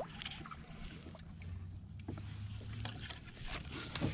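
Water lapping gently against a plastic sit-on-top kayak's hull at sea, with a few faint knocks.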